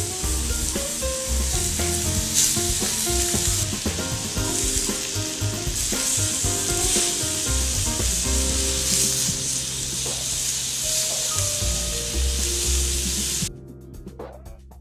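Pork cutlets and vegetables sizzling on a hot ridged grill pan, a steady frying hiss over background music. The sizzling cuts off suddenly near the end, leaving only the music.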